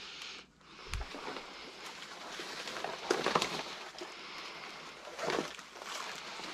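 Footsteps and rustling through ferns, grass and leaf litter as a person walks down a wooded slope, with louder steps about three and five seconds in. A dull knock about a second in.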